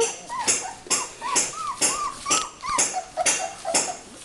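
Puppy whimpering in a run of short, high squeaks, about two or three a second. The squeaks drop lower in pitch after about three seconds.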